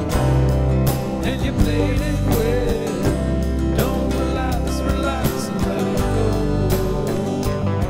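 Background music: a song with a steady drum beat over a bass line.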